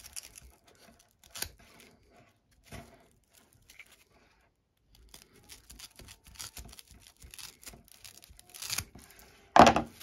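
Divo Knives Stout folding knife's sheepsfoot blade sawing through thick twisted nylon rope, the fibres tearing under it. Short scraping, tearing strokes come one after another, pause briefly around the middle, then come quickly again, with one louder stroke just before the end.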